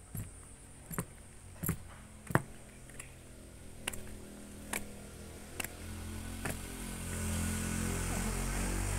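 Walking footsteps on stone paving, a sharp step a little under once a second. Background music fades in during the last few seconds and becomes the loudest sound.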